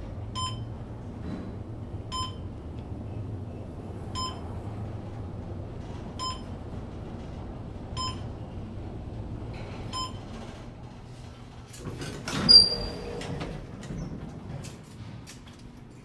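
Schindler 500A traction elevator car travelling up with a low steady hum and a short ringing ping about every two seconds, six times, as it passes each floor. Near the end the car stops with a loud clatter and a high chime as it arrives and the doors open, followed by a few light clicks.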